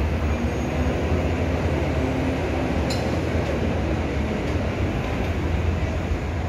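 Steady low rumble of heavy street traffic, with queued buses and a Hong Kong Light Rail car standing at the platform. A brief click about three seconds in.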